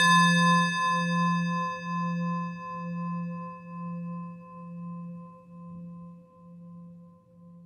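An alarm-tone chime: a single struck bell-like note ringing on and slowly fading, with a pulsing wobble in its loudness. Its higher overtones die away first, leaving the low note and a couple of mid overtones.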